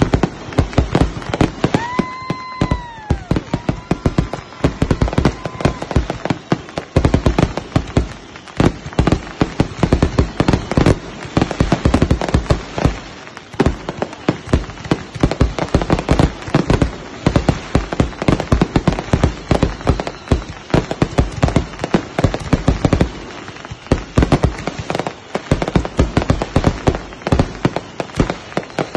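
Consumer fireworks finale: a dense, unbroken barrage of bangs and crackles from many aerial shells firing in rapid succession. About two seconds in, a high whistle sounds over the bangs and drops in pitch as it ends, followed by a second, shorter whistle.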